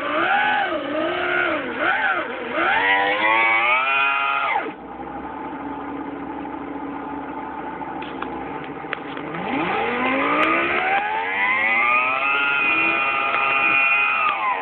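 Synthetic V10 engine sound from a Sound Racer gadget, played through the car stereo. It revs up and down, cuts abruptly to a low idle about five seconds in, then climbs from about nine and a half seconds to a high, held rev. Its engine speed is poorly synchronized with the car's real engine.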